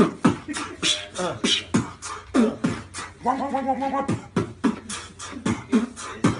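A man beatboxing into his cupped hands: a quick run of mouth clicks and pops, about five a second, with a held hummed note a little after three seconds in.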